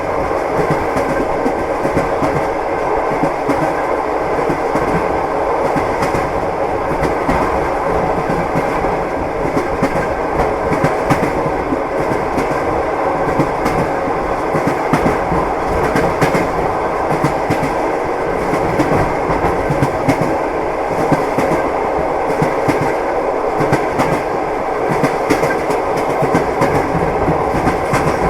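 Train wheels clattering over the rail joints: a steady, continuous rumble with clicks scattered through it.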